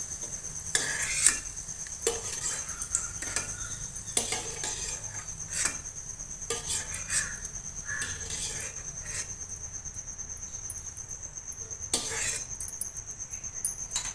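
Slotted spoon scraping and clinking irregularly against a ghee-coated kadai while scooping out fried raisins and tipping them into a small glass bowl.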